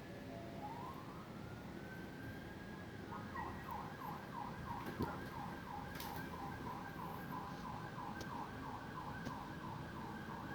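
Faint emergency vehicle siren: a rising wail for about two seconds, then a fast yelp sweeping up and down a few times a second.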